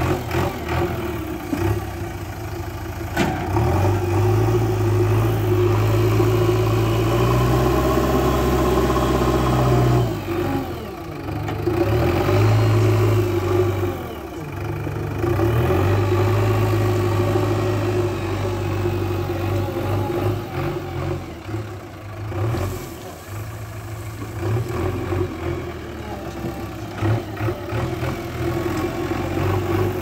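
JCB backhoe loader's diesel engine running as the machine drives and works its front loader, the engine note rising and falling with load. It is loudest from a few seconds in until about 10 s, then eases briefly twice before settling into a steady run.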